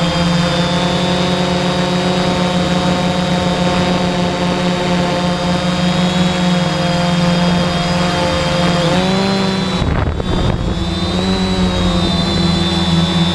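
Multirotor drone's electric motors and propellers whining steadily, heard from the camera on board. Near the end the pitch dips and wobbles briefly before settling again.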